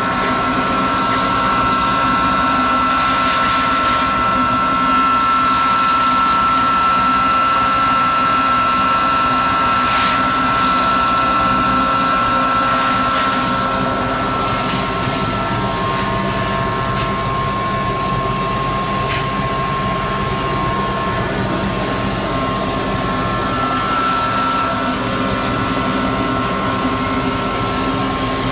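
Multi-function grinding machine running steadily, a motor hum with a high whine over it. The whine's pitch drops slightly about halfway through and returns near the end.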